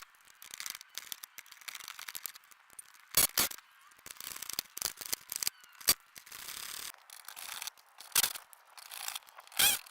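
Hand tools working the fender's mounting bolts: a run of rapid metallic clicking, typical of a ratchet and socket, broken by several sharp knocks of metal on metal, five of them loudest.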